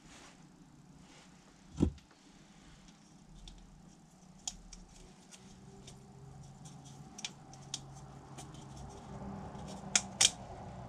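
Light clicks and taps of a plastic diesel fuel filter housing being handled and turned over in the hands while its O-rings are changed, with one louder knock about two seconds in and two sharp clicks near the end.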